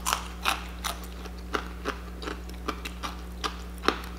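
Close-up chewing of crunchy fried chicken breading, a crisp crunch about every third of a second.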